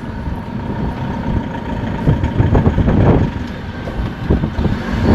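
Campervan on the move: engine and road rumble, uneven in level.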